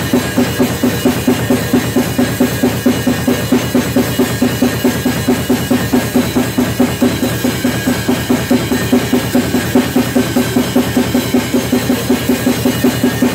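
Acoustic drum kit played in a fast, steady pattern of bass drum, snare and toms, with louder accents about three times a second.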